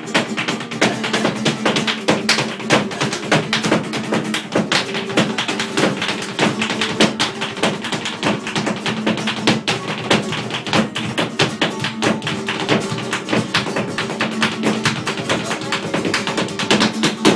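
Live flamenco: a flamenco guitar plays under steady hand-clapping (palmas) and a dense run of rapid, sharp taps from a dancer's footwork (zapateado).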